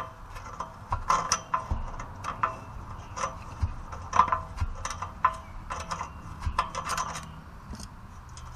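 A metal hand tool grips and turns a corroded nut off an exhaust-flange stud, with repeated metallic clicks and scrapes about two or three times a second that thin out near the end. The mild-steel nut has rusted almost to powder on its stainless-steel stud.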